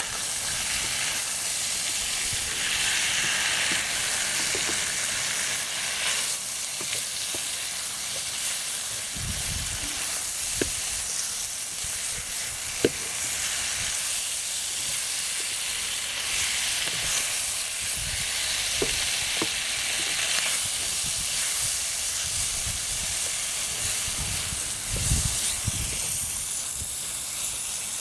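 Octopus pieces in curry sauce sizzling steadily in a hot pan while being stirred, with a few sharp clicks of the utensil against the pan.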